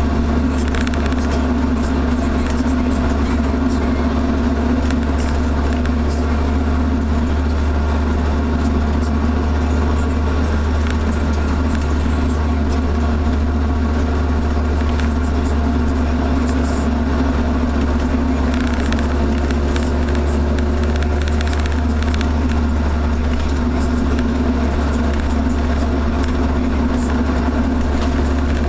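Volvo 245 with a 3-inch exhaust from the Y-pipe back, heard from inside the cabin while cruising: a steady low engine and exhaust drone mixed with road noise. The car's cabin noise partly covers the exhaust.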